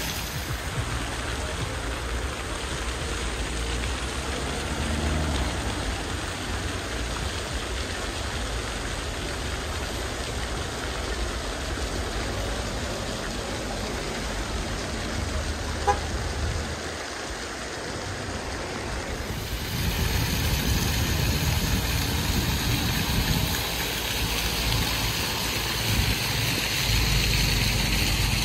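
Fountain jets splashing and falling into a stone basin, over the hum of car traffic on a city road. A single short toot sounds about halfway through. The water hiss grows louder in the last third.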